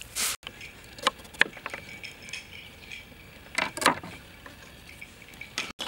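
A few light taps and clinks from kitchen handling at a wooden chopping board, scattered singly, with a short cluster of them about three and a half seconds in.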